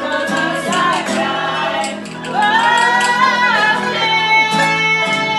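Mandolin and acoustic guitar played live with a woman's voice singing along, a folk song with several notes sung as sliding, held lines.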